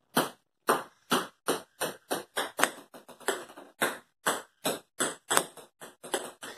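Ping pong balls bouncing on a hard tiled floor: a run of light, sharp clicks that come closer together as each ball settles. Fresh, louder runs start as further balls land.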